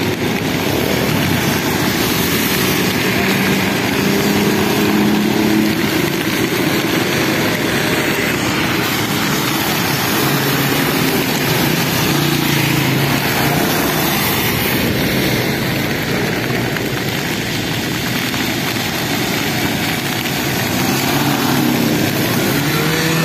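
Road traffic in the rain: cars and motorcycles drive past on a wet road, their engines rising and fading as each one goes by, several times. Under them runs a steady rushing rumble of wind on the microphone and rain.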